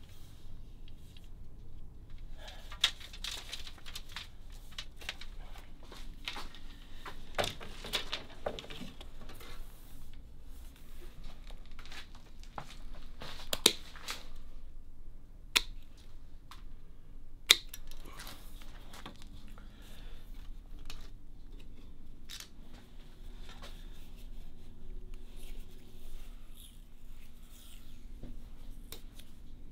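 Thin solid bamboo canes being handled at a workbench, rustling, scraping and knocking lightly, with several sharp snips from pruning shears cutting the bamboo. Adhesive tape is pulled off a roll as it is wound onto a rod.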